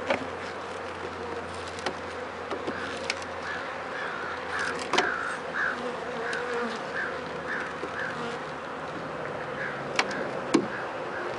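Honeybees buzzing steadily around an open hive, with a few sharp knocks of a hive tool against the wooden frames, near the start, about halfway and twice near the end.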